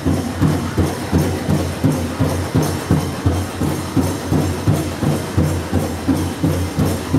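Powwow drum group playing a steady, even beat, about two strokes a second, with jingling from the dancers' bells and regalia on each beat.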